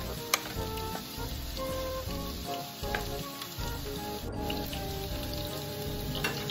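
Cubed chicken sizzling as it fries in a nonstick frying pan, stirred and turned with a wooden spatula, with a single sharp knock about a third of a second in.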